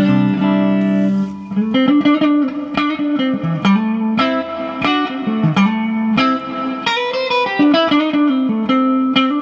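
Gibson Custom Shop 2003 Les Paul 1958 reissue electric guitar played through an amp: a chord rings out at the start, then a rock riff of picked single notes and short double-stops.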